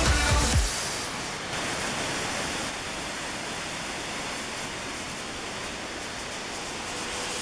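Steady rushing of a large waterfall, falling water and spray with no pitch or rhythm, taking over as a music track stops under a second in.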